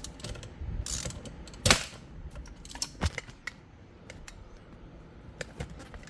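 Scattered metallic clicks and clinks of a ratchet and socket backing off the already-loose 21 mm steering-wheel nut, with one sharper clack about a second and a half in.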